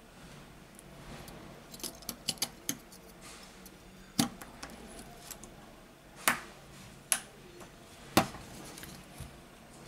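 Sharp clicks and light taps of a smartphone's mainboard and plastic frame being handled and pressed together. There is a quick run of small clicks about two seconds in, then four louder single clicks about a second apart.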